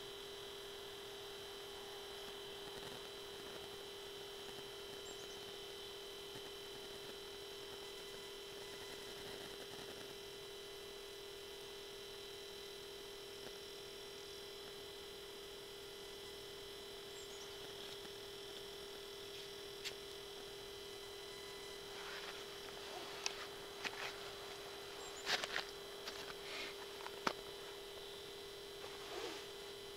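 A steady electronic hum with a fixed pitch, with several sharp clicks and knocks in the last third.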